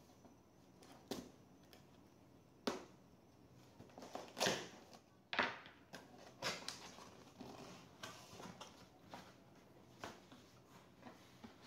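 Irregular clicks, taps and short scrapes of a Lenovo ThinkPad E14 Gen 4 laptop being handled for a RAM upgrade. The loudest are two longer scraping sounds about four and a half and five and a half seconds in.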